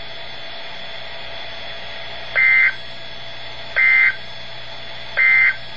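Three short warbling data bursts from a NOAA Weather Radio broadcast, evenly spaced about a second and a half apart: the SAME digital end-of-message code that closes the weekly test alert. They play through a small weather radio's speaker over a steady hum.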